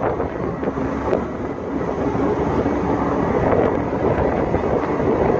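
Steady mechanical running of a water jetter's engine and high-pressure pump as its hose jets water through a culvert to clear it, with wind rumble on the microphone.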